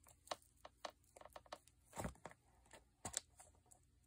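Awl being pushed through a paper template into a journal's stiff spine, which is layered with a glued doily: quiet scattered clicks and scratches of the point, with several sharper pops as it breaks through.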